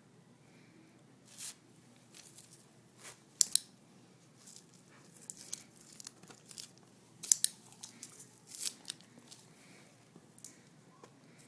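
Irregular crinkling and crackling with short sharp clicks, loudest in a few snaps about three and a half and seven seconds in.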